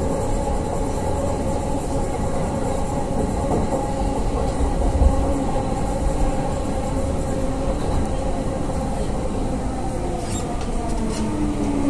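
Delhi Metro train running, heard from inside the carriage: a steady rumble of wheels on rail with a faint motor whine.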